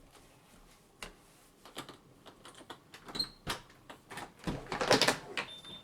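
A door being handled: a run of sharp clicks and knocks from the latch and knob, busiest and loudest about four to five seconds in.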